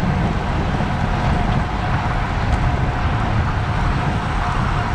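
Wind buffeting the microphone of a bike-mounted camera at race speed, a steady low rumble with hiss, mixed with the tyre and road noise of the bicycle rolling fast over asphalt.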